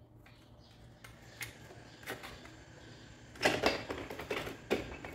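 Metal clicks and clinks of hands and a tool working a motorcycle's rear axle and chain adjuster: a few separate taps, then a quicker cluster of knocks about three and a half seconds in.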